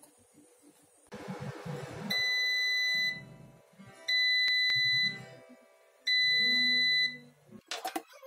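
Air fryer beeping three times to signal that the cooking cycle has finished: three loud, long beeps on one steady high tone, each about a second long and two seconds apart. A brief clatter follows near the end.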